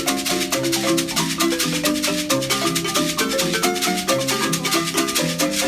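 Instrumental background music: a quick melody of short, stepping notes on a marimba-like mallet instrument over a fast, steady shaker rattle.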